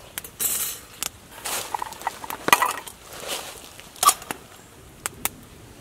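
Metal camp cookware, a pan and a stovetop moka pot, knocked and scraped on a wire grill grate over a campfire: a string of sharp clinks and short scrapes, two of them with a brief metallic ring.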